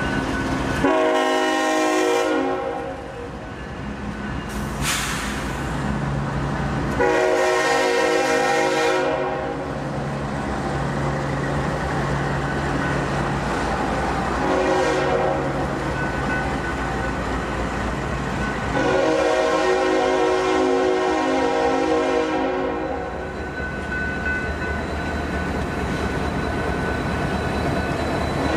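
Union Pacific diesel locomotive horn sounding the grade-crossing signal, long, long, short, long, over the steady rumble of the passing freight train's diesel engines. Another blast begins near the end.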